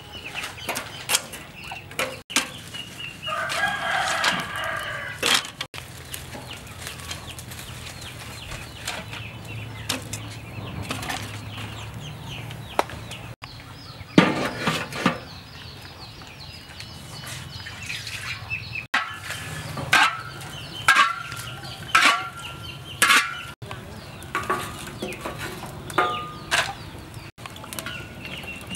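Chickens clucking around the yard, with a rooster crowing once, a long call about three to five seconds in. Scattered sharp knocks, the loudest about halfway through as a large iron wok is set down on a barrel wood stove, and a run of short knocks and calls in the last third.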